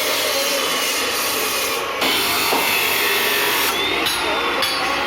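Power tool grinding or cutting metal, a continuous loud abrasive noise with a faint whine that drifts slowly in pitch as the load changes.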